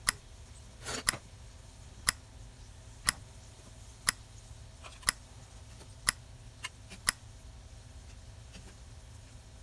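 A clock ticking steadily, one sharp tick a second, with a few fainter clinks of a ladle against a pot in between.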